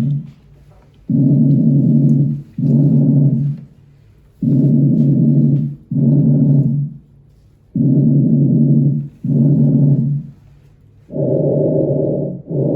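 Breathing heard through a stethoscope on the back: each breath in and out comes as a low, muffled, droning sound. Four breaths come at an even pace, about one every three seconds.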